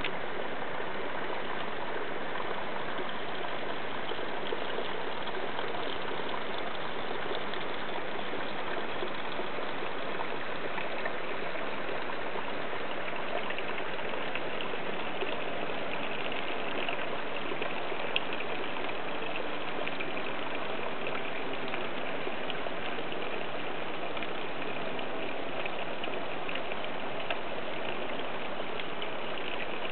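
Steady, even rushing noise of running water.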